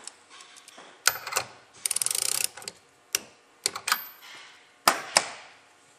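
Ratchet wrench clicking in a quick run about two seconds in as a lock nut is tightened, with single sharp metal clicks and clinks of tools before and after it.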